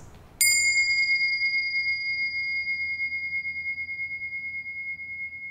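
A small bell struck once, giving a clear high ringing tone that fades slowly over several seconds.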